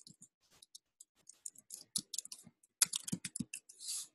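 Typing on a computer keyboard: a run of irregular key clicks, coming faster about three seconds in.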